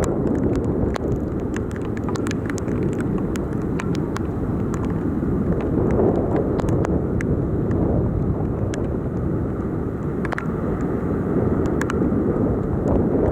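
Torrential rain on a flooded street with vehicles in the water: a steady low rush with scattered sharp ticks throughout.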